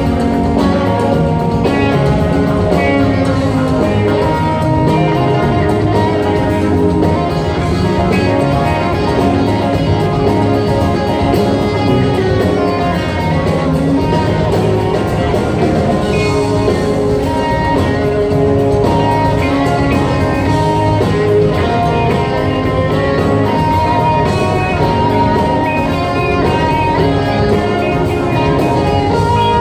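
Live rock band playing: electric and acoustic guitars, keyboards, bass and drums, heard from the audience.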